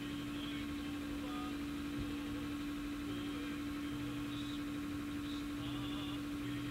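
Scania aerial platform fire truck's engine running, a constant steady hum while the boom moves the basket.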